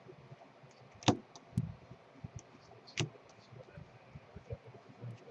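Baseball trading cards being handled and flipped, with two sharp clicks about one and three seconds in and a few fainter taps between them.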